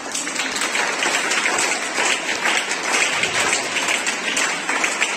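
A small group of students clapping their hands in applause, many quick claps blending into an even run of applause.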